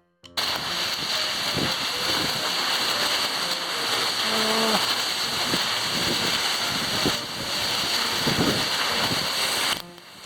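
Loud, steady rushing roar of a waterfall and its stream, cutting in abruptly and ending abruptly near the end.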